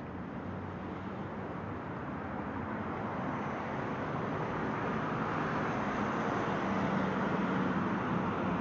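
City road traffic going by: a steady rush of engines and tyres that grows gradually louder.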